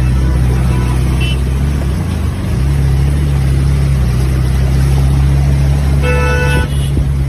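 Auto-rickshaw engine running with a steady low drone, dipping briefly about two seconds in. A vehicle horn sounds briefly near the end.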